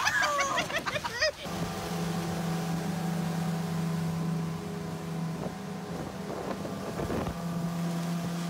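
For about the first second and a half, people shriek and yell. Then a motorboat engine runs steadily while towing the tube, with rushing water and wind on the microphone.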